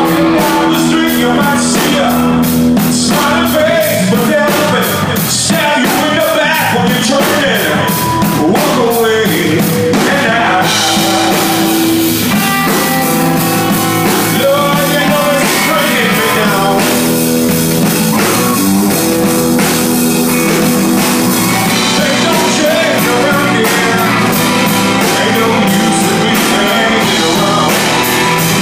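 Live rock band playing: electric guitar, organ and drum kit, with a steady drumbeat under held organ chords.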